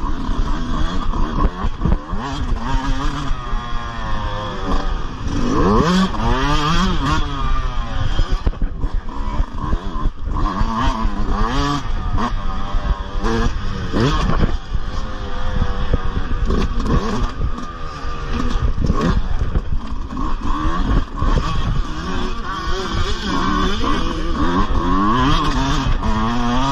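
Dirt bike engine revving hard and dropping back again and again as the bike is raced and shifted, with short knocks from the bike over rough ground.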